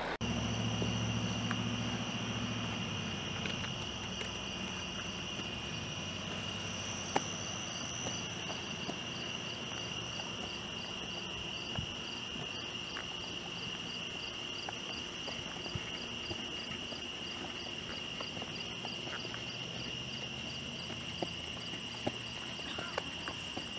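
Night-time chorus of crickets: a steady high trill with a regular pulsing chirp above it. A low hum fades out over the first few seconds.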